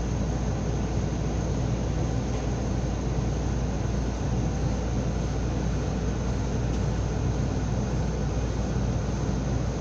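Steady low hum and hiss inside an electric train carriage, with no change in level.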